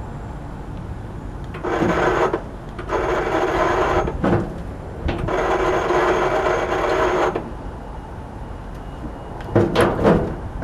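Lifting chain rattling as it is run through the lowering rig in three runs, the second and third longer than the first, while the heavy compressor head is let down.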